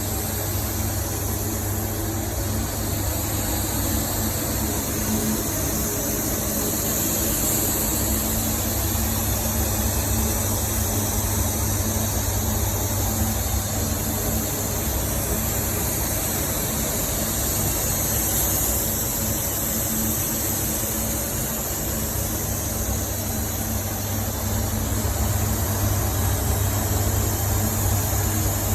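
A machine running steadily: an even low hum with a high hiss above it that shifts slightly in pitch partway through.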